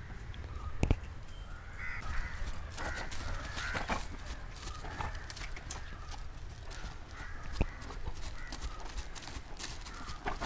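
Horse's hooves striking the ground in an irregular series of thuds and knocks, the sharpest two about a second in and near three-quarters of the way through, with crows cawing.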